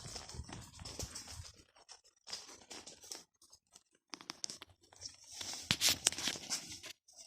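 Trail horses walking on a dirt trail: irregular hoof scuffs and scraping, with a lull in the middle and a louder cluster of steps near the end.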